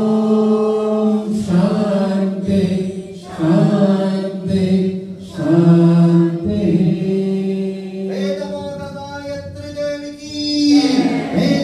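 Devotional chanting of a Hindu mantra, voices held on long steady notes in phrases of a second or two, with brief breaths between.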